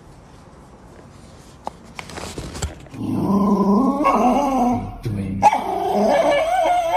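A dog vocalizing in long, wavering growl- and bark-like sounds from about three seconds in, with a short break midway; a few faint clicks before it.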